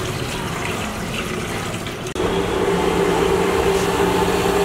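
Water bubbling at a rolling boil in a large metal pot. After an abrupt break about two seconds in, the gas burner under the pot roars steadily with a low hum.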